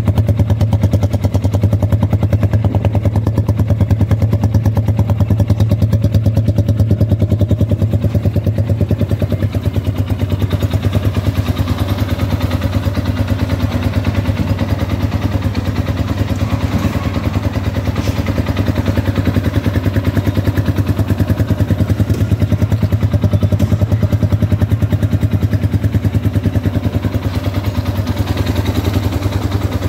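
Tekken 200 motorcycle engine idling steadily, a fast even low pulse with no revving.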